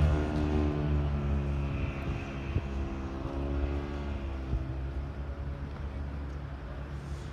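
A motor engine's steady low hum, loud at first and fading gradually over several seconds as it moves away.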